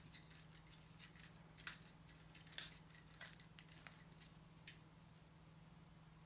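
Near silence with a low steady hum, broken by about five faint small clicks as a battery-operated quartz clock movement and a speedometer dial are handled and fitted together.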